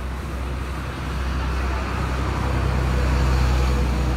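Komatsu forklift engine running under load, a steady low drone that grows louder about halfway through as the forklift pulls by chain on a block of ironwood too heavy for it to drag out easily.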